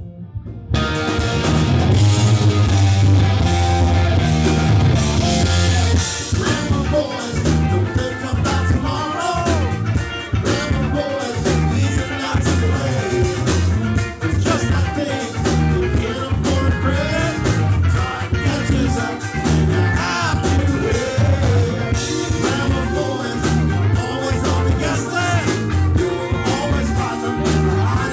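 Live rock band playing loud, with bass guitar, drums and electric guitar and a singer's voice over them. The full band comes in about a second in.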